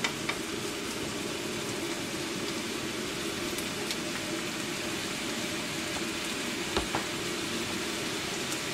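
Ground beef and onions sizzling steadily as they brown in a nonstick frying pan, with a single light knock about seven seconds in.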